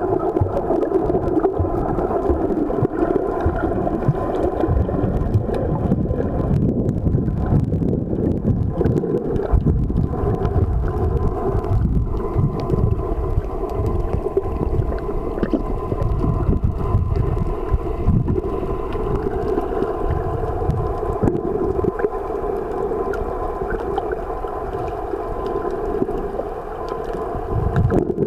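Muffled underwater sound picked up by a camera submerged in the sea: a steady low rumble with a droning hum running under it.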